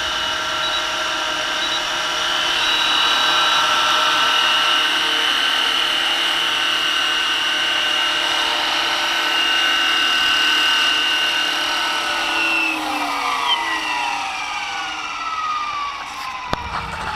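Radio-controlled model AH-64 Apache helicopter hovering, its motor and rotors giving a steady high whine. About thirteen seconds in, after it has set down, the whine falls steadily in pitch as the rotors spool down.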